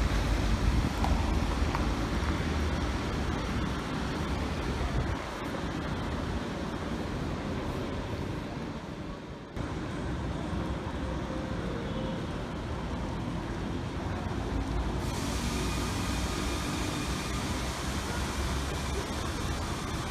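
City street ambience: traffic noise with a heavy low rumble, changing abruptly about halfway through and again about three-quarters of the way through as one stretch of street sound gives way to another.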